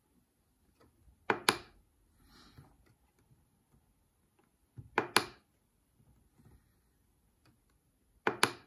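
Buttons on a CNC controller's keypad being pressed three times, each press a quick double click, about three and a half seconds apart.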